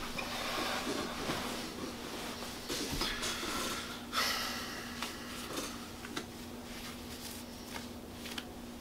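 Soft breathing and rustling close to the microphone over a steady low hum, with a few faint clicks.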